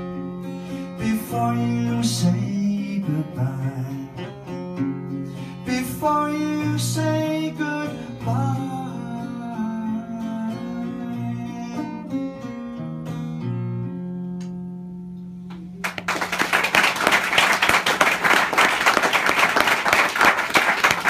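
Acoustic guitar playing the closing bars of a song, with some singing, ending on a held final chord that fades out. About sixteen seconds in, audience applause breaks out and continues.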